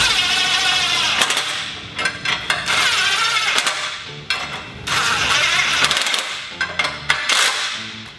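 Cordless impact driver tightening the nuts on a sprayer-boom drop mount. It runs in several short bursts of buzzing, hammering whine with brief pauses between them.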